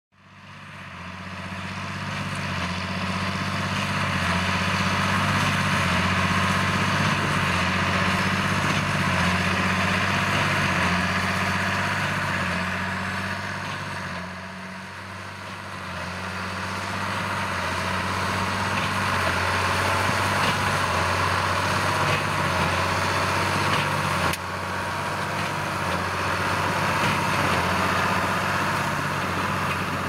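A John Deere 8410 tractor's six-cylinder diesel runs steadily under load, pulling a New Holland BB9080 big square baler that is working through corn stalks, with the baler's machinery clattering along with the engine. The sound fades in over the first two seconds and dips briefly about halfway through.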